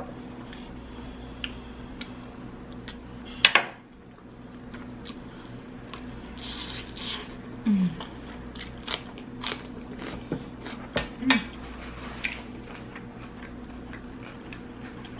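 A person eating: chewing and mouth sounds with scattered wet clicks and taps, the sharpest about three and a half seconds in.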